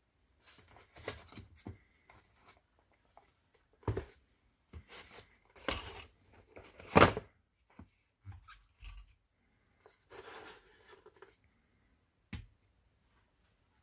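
Packaging being handled and torn during an unboxing: rustling and tearing in short irregular bursts, with a few sharp knocks, the loudest burst about seven seconds in.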